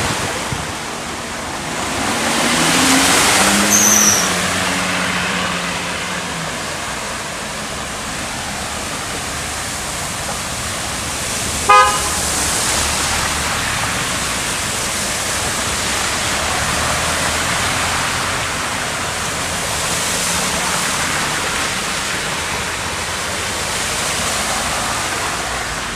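Road traffic on a flooded street over a steady rush of noise, with a vehicle passing loudly a few seconds in. A single short car horn toot comes about twelve seconds in.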